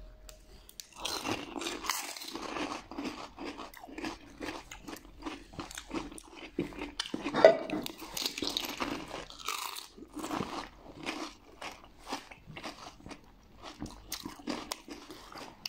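Two people eating pani puri fast: many sharp crunches as the crisp fried puri shells, dipped in pani, are bitten and chewed.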